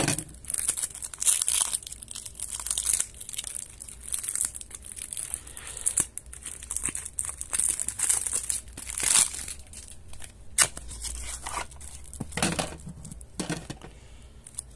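Cellophane shrink wrap crinkling and tearing in irregular bursts as it is pulled off a boxed deck of playing cards.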